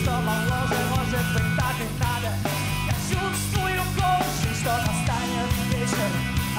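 Live rock band playing, with electric guitars and drums: a melodic line over a steady beat.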